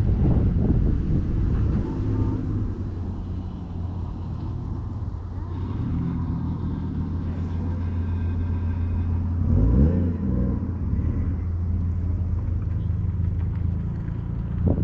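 Calico cats purring close to the microphone: a steady low, rhythmic rumble that shifts in pitch every few seconds with each breath in and out.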